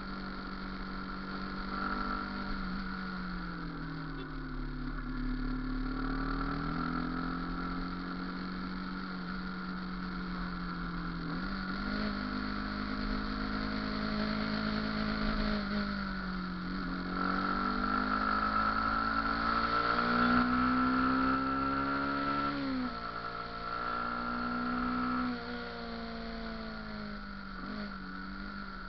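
Motorcycle engine running under way, its pitch climbing as it accelerates and dropping sharply several times, in the pattern of upshifts.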